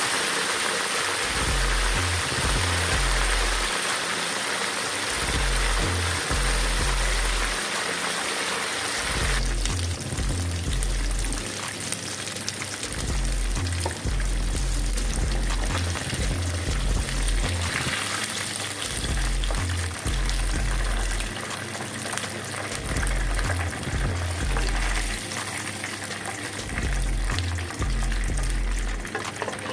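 Background music with a repeating bass line over the steady sizzle of parrot fish frying in hot oil; the sizzle changes about nine seconds in, thinning to a finer crackle.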